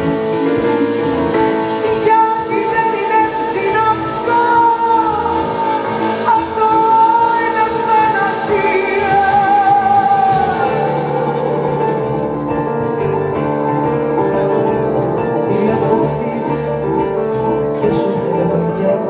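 A live band playing a Greek popular song. A wavering lead melody with vibrato rides over the band for about the first ten seconds, then the band plays on alone.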